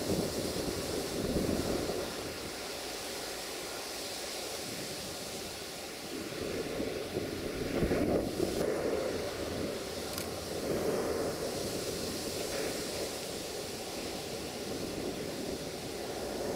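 Wind buffeting the microphone: a gusty rushing noise that swells and fades every few seconds.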